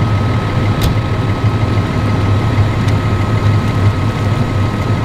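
Pierce Velocity fire engine's Cummins L9 six-cylinder diesel running steadily at the pump panel, a low, even drone with a thin steady whine above it. One sharp click about a second in.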